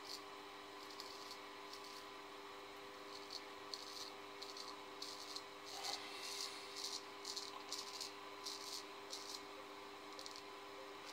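Straight razor scraping through lathered stubble on the upper lip: a run of short, quick raspy strokes, thickest around the middle, over a steady low hum.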